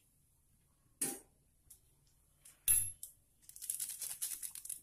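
Two knocks of a spoon or sachet against a plastic plate on a tiled counter, then a stretch of fine crackling as plastic instant-noodle seasoning sachets are handled and torn open.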